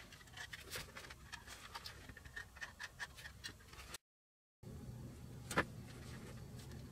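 Faint small clicks and taps of hands handling a crystal radio kit's plastic panels and wire-wound cardboard coil form, broken by half a second of dead silence just after the middle, with one sharper click near the end.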